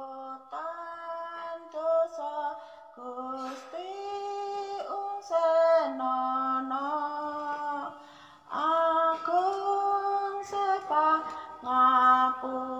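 A woman singing a slow hymn melody in long held notes that step from pitch to pitch, with a short break about eight seconds in.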